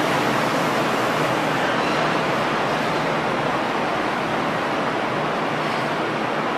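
Odakyu Romancecar electric train rolling past along a station platform: a steady rush of wheel and running noise with a faint low hum.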